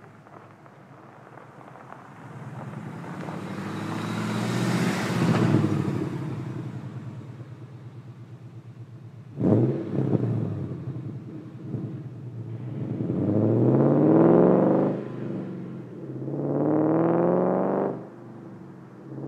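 Ford Mustang Mach 1's four-valve 4.6-litre V8 through long-tube headers, a catted H-pipe and Magnaflow mufflers. The engine swells and fades, then the car passes close with a loud burst nearly ten seconds in. It pulls away hard, rising in pitch, with two upshifts breaking the pull.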